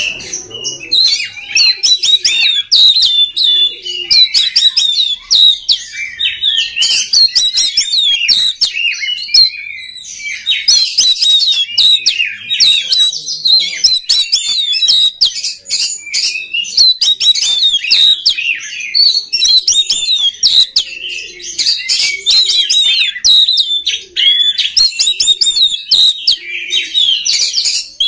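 Oriental magpie-robin (kacer) singing a fast, unbroken run of chirps and whistled notes, pausing only briefly twice.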